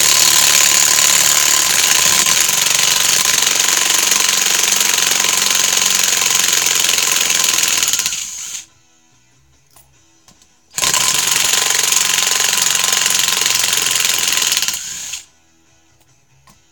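Chicago Electric 12-volt lithium-ion 1/4-inch hex impact driver hammering as it backs screws out. It goes in two long runs, about eight seconds and then about four seconds, with a short pause between.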